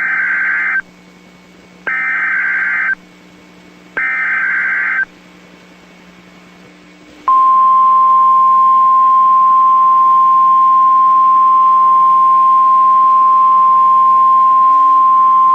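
NOAA Weather Radio emergency alert announcing a severe thunderstorm warning. First come three one-second bursts of the SAME digital header data, about two seconds apart. Then, about seven seconds in, the steady 1050 Hz warning alarm tone begins and holds.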